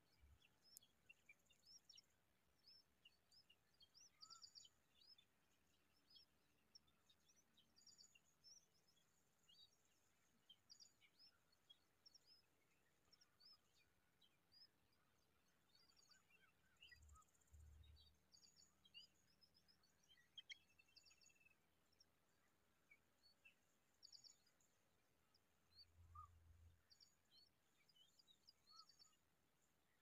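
Faint, scattered high chirps and tweets of small birds, many short calls overlapping irregularly. A few brief low rumbles come near the start, in the middle and later on.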